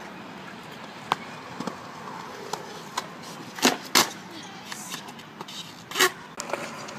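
Skateboard wheels rolling on concrete, with sharp clacks and knocks of the board: one about a second in, two loud ones close together about halfway through, and another near the end.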